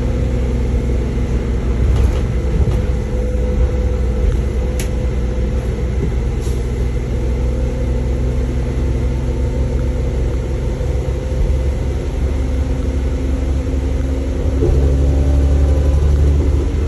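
Bus engine running steadily with a low hum and several steady tones; it grows louder near the end. A few faint clicks sound early on.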